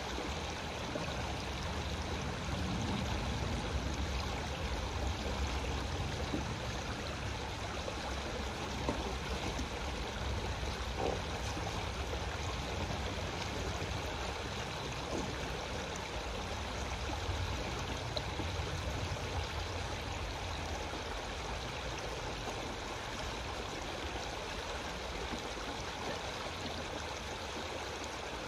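Shallow creek water rushing steadily over a sandstone rock shelf, with a couple of faint, brief knocks near the middle.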